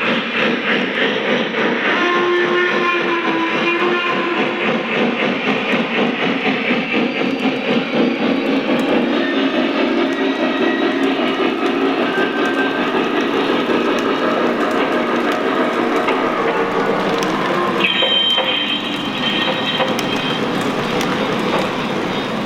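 Lionel Visionline Class A O-scale model steam locomotive running on a layout: its on-board sound system plays steam effects over the running noise of the wheels on the track, with brief steady pitched tones about two seconds in and again near the end.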